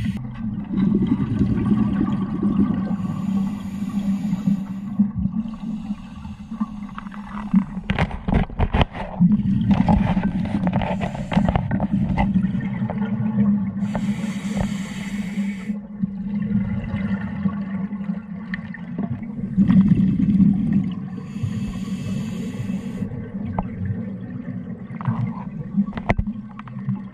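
Scuba regulator breathing underwater: three hissing inhalations about eight to ten seconds apart, each followed by a long gurgling rush of exhaled bubbles. A few sharp knocks come about eight seconds in.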